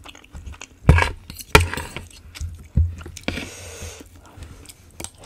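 Eating sounds: a fork and spoon clicking against the plate of pork ribs three times, with wet chewing and squishing in between.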